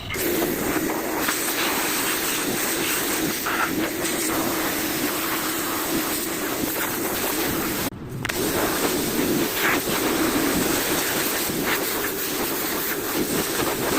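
Water spray hissing as a jet washes caked mud off a lawn mower, with a steady low hum beneath it. The spray stops for a moment about 8 seconds in, then starts again.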